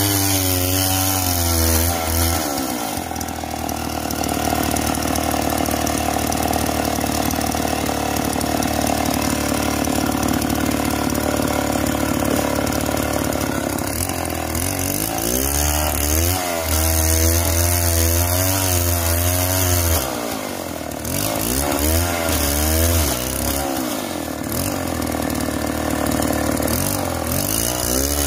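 Two-stroke chainsaw running at high revs while ripping lengthwise along a log. Its engine note wavers up and down as the chain loads and frees in the cut, over a steady hiss.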